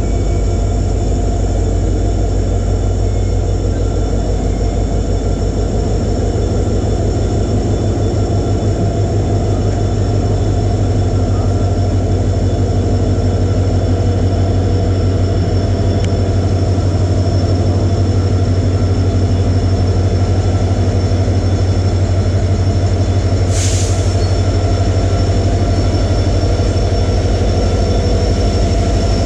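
EMD 16-cylinder two-stroke diesel engine of a WDP-4B locomotive humming steadily at idle, with a fast even throb and a high steady whine over it. A brief hiss cuts in about six seconds before the end.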